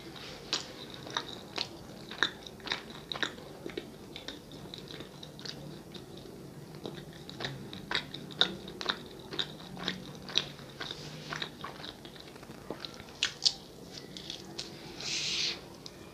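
Chewing of a soft sonho filled with guava paste (goiabada), heard as wet mouth clicks and smacks at irregular intervals. A short hiss comes near the end.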